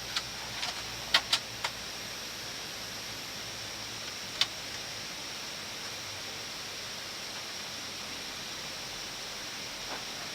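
Steady hiss of air and engine noise on an Airbus A319 flight deck while the airliner rolls out and taxis after landing, with a few sharp clicks in the first two seconds and another about four seconds in.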